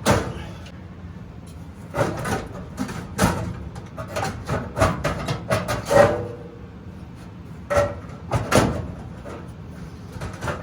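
Irregular metallic knocks, scrapes and rattles of a Samsung dryer's heating element and its wiring being worked loose inside the dryer cabinet, with a few brief ringing clanks.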